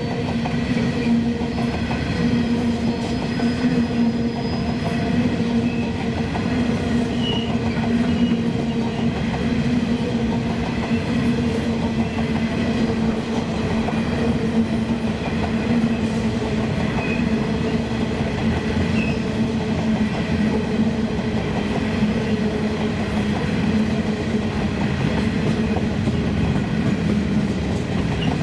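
Loaded-style coal train's hopper wagons rolling steadily past, a continuous rumble of steel wheels on the rails with a steady hum running through it.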